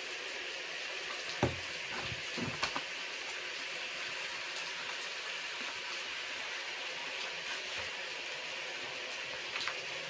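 Steady hiss of rain. A few soft knocks come about a second and a half in, twice more shortly after, and once near the end.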